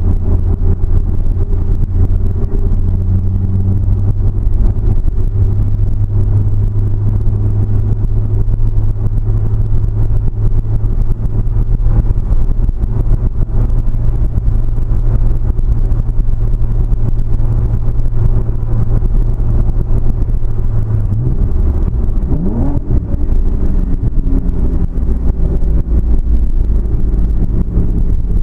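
A car's engine and road noise picked up by a GoPro: a loud, steady low drone for most of the time, then the engine note steps up and a brief rising tone sweeps past about 21 to 23 seconds in.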